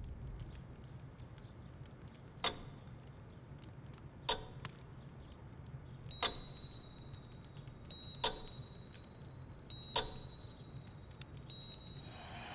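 Sparse, quiet sound effects over a low steady hum: a sharp click about every two seconds, joined about halfway by a high steady tone sounding in long beeps with short gaps.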